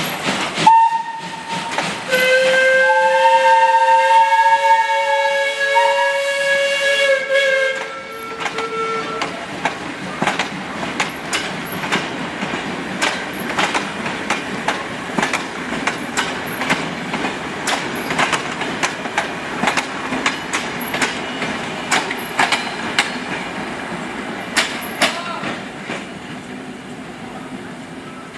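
Steam locomotive whistle sounding a chord of several pitches: a short blast, then a long one of about six seconds. After it comes the passing train's wheels, clicking regularly over the rail joints and fading away.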